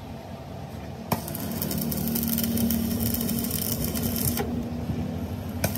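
Stick (arc) welding on a cracked steel truck axle housing: the arc strikes about a second in and crackles steadily for about three seconds over a low hum, then stops. A short restrike crackles again near the end.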